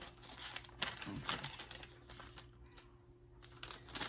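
Plastic snack pouch crinkling as it is handled and opened, in irregular crackles that thin out in the middle and pick up again near the end.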